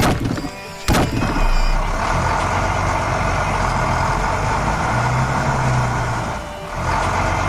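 A heavy vehicle engine running steadily with a low hum, after two sharp knocks at the start and about a second in; it dips briefly near the end and picks up again.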